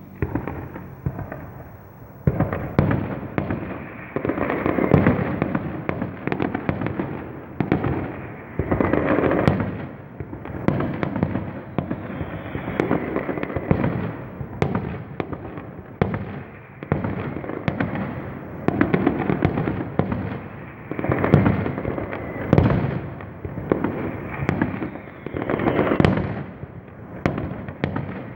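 Fireworks going off in a continuous barrage: many sharp cracks and pops over swelling booming rumbles, with hardly a pause.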